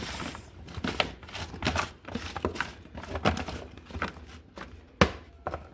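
A spoon stirring and tossing seasoned vegetables in a bowl: irregular scraping and light clicks, with one sharp knock about five seconds in.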